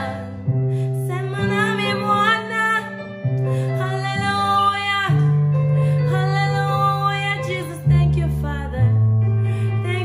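A woman singing a slow worship song over an instrumental backing of long held chords that change every second or two.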